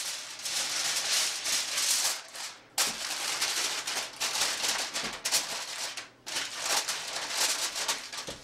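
Sheet of aluminium foil crinkling and crackling as it is spread over a metal baking pan and pressed down around the rim, stopping briefly twice.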